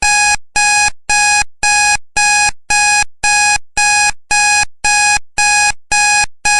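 Countdown timer's electronic alarm beeping at about two beeps a second, starting suddenly as the timer reaches zero. Each beep is a steady pitched tone that fades at its end.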